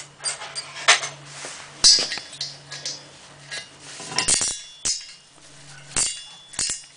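Ratcheting wrench turning a steel bolt down into a welded steel frame: irregular metallic clicks and clinks of the wrench and bolt against the steel.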